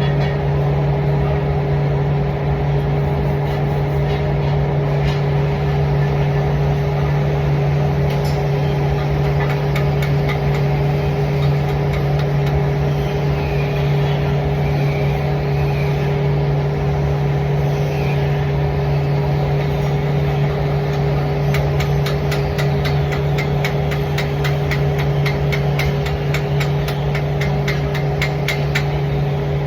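A steady low machine hum runs throughout. About two-thirds of the way in, a fast, fine crackling joins it.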